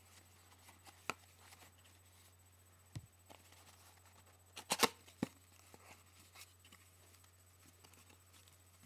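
Hands handling a yoyo and its packaging, making scattered small clicks and taps. The loudest is a quick cluster of sharp clicks about halfway through, and a faint steady low hum runs underneath.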